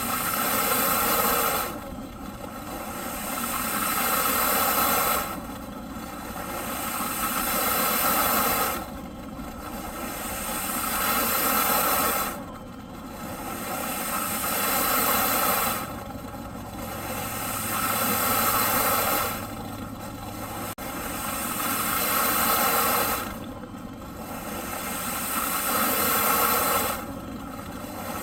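Eureka PowerSpeed upright vacuum cleaner running, its hissing motor noise swelling over about three seconds and then dropping off sharply, in a regular cycle that repeats roughly every three and a half seconds.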